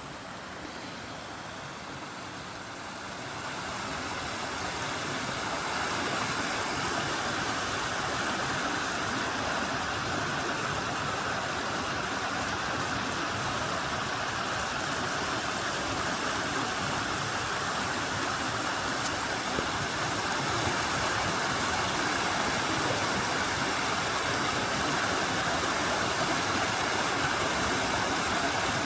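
Mountain stream water rushing and splashing over rocks in a steady hiss, growing louder over the first few seconds and then holding steady.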